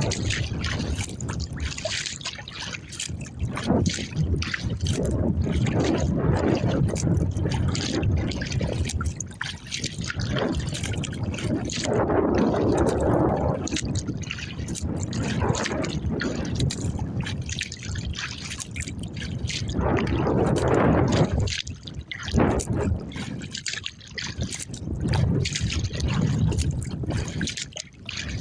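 Water splashing and trickling around a kayak, swelling and fading in uneven surges every few seconds.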